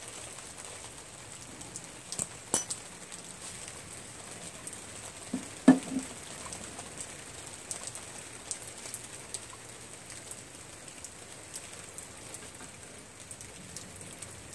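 Rain pattering down as a steady hiss scattered with small drop ticks. A few light clicks sound about two seconds in, and a sharper knock comes a little before the middle.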